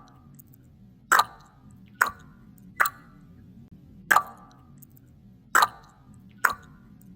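A sharp plopping sound repeated six times, unevenly spaced about a second apart, over a faint low background hum.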